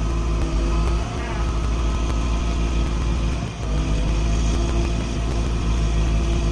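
Heavy diesel engine running steadily at a constant speed, with a brief dip in level about halfway through.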